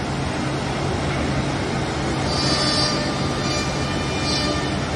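Steady machine hum with several steady tones, from a running Woodmaster WM-1500C4 four-head CNC mortising machine and shop equipment. A few short, high hiss-like bursts come in a little after halfway.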